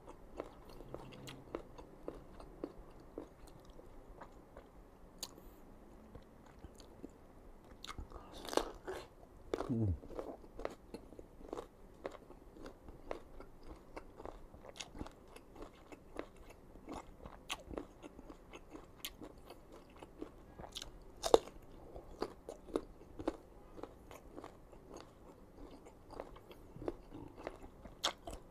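Crisp raw green mango being bitten and chewed: a steady run of crunches and wet chewing, with one sharp, loud crunch about 21 seconds in.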